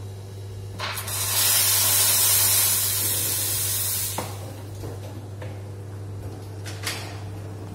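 Commercial espresso machine blowing off a burst of steam, a loud hiss lasting about three seconds that stops suddenly, over the machine's steady low hum. A couple of light clicks follow near the end.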